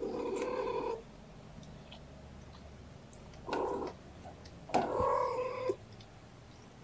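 Mother cat calling to her kittens: three meow-like calls, the first and last about a second long with a short one in between, the last the loudest.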